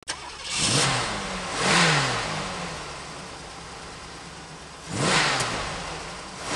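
Car engine revved in short throttle blips over a steady idle: three sharp rises in pitch, each falling back more slowly, with a fourth starting at the very end.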